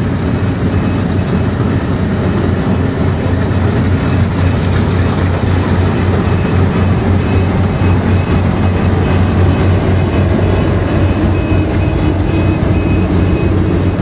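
Yanmar AW70 rice combine harvester running while harvesting: a loud, steady diesel engine drone mixed with the dense rattle of the cutting and threshing mechanism.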